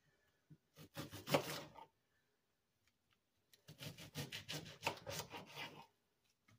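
Kitchen knife slicing Brussels sprouts in half against a cutting board, in two bouts of quick cuts and scrapes: a short one about a second in, and a longer run of rapid cuts from about four seconds in that lasts about two seconds.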